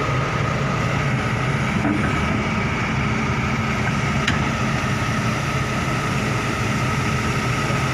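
Heavy diesel engine running steadily, a low drone with a thin steady whine above it.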